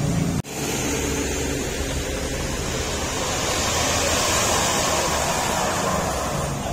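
Diesel engine of a Mercedes-Benz OH 1626 coach running at low speed as it crawls around a tight hairpin: a steady, noisy rumble with a lot of hiss, after a brief dropout about half a second in.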